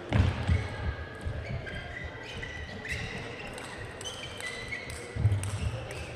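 Table tennis rally: the celluloid ball clicking back and forth off the rackets and table, with shoes squeaking on the court floor and heavy footwork thuds just after the serve and again about five seconds in.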